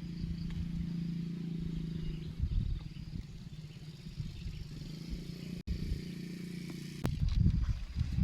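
A steady low engine-like hum, the kind a small motor makes running at a distance, under a low wind rumble. A single sharp click comes about seven seconds in, and strong gusty wind then buffets the microphone.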